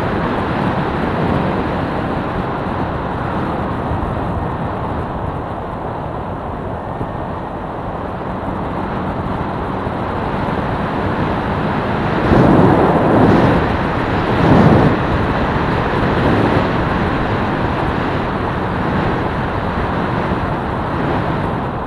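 Wind rushing over the microphone and a small motorcycle's engine running steadily while riding, with two louder gusts of wind buffeting about halfway through.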